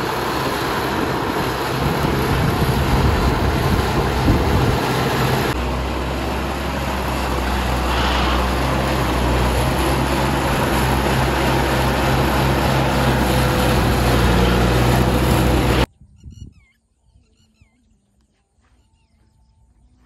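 Engine-driven rice-processing machinery running steadily with a heavy low drone. About sixteen seconds in it cuts off abruptly, leaving only faint bird chirps.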